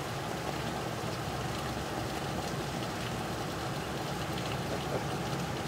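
Steady background noise with a low hum and a faint patter of water.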